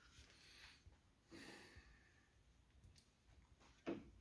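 Near silence, with a faint breath about a second and a half in and a soft click near the end.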